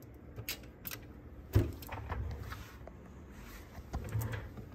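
Handling noise as cable plugs are fitted at the back of a cassette deck: a few scattered clicks and knocks, the loudest a thump about one and a half seconds in.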